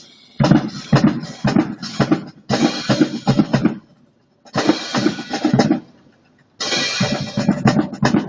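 Live drum ensemble playing fast, dense strokes on drums. Three stretches of clashed cymbals ring over the drumming, with brief pauses between the phrases.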